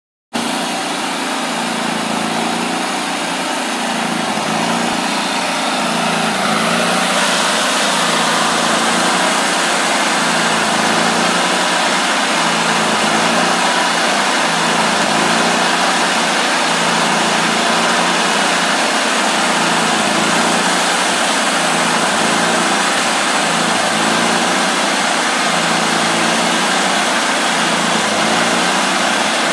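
Homemade bandsaw mill running at cutting speed: its engine runs steadily at high revs, with the band blade and wheels spinning. It gets a little louder about seven seconds in.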